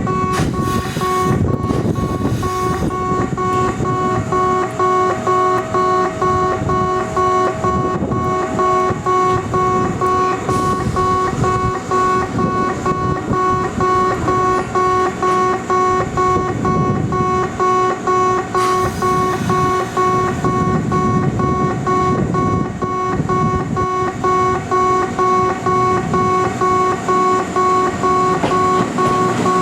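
A station level-crossing warning buzzer sounding continuously in a steady repeating pulse. It is a bright electronic tone with several pitches at once, over a low rumble.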